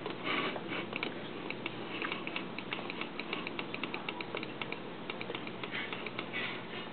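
Computer keyboard keys clicking in a quick run of typing, several keystrokes a second, from about a second and a half in until about five seconds in.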